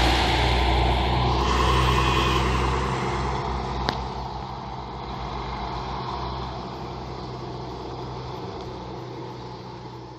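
Diesel engine of an intercity coach pulling away, its low hum loud at first and then fading steadily as it recedes, mixed with a small car driving behind it. There is one sharp click about four seconds in.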